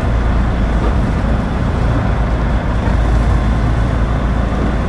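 Fishing boat running at speed: a steady low engine rumble under the rush of water along the hull.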